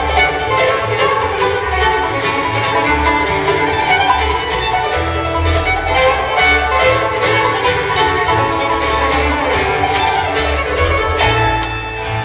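Acoustic string band playing a fast instrumental tune live: fiddle to the fore over quick picked notes from mandolin, banjo and guitar, with upright bass underneath.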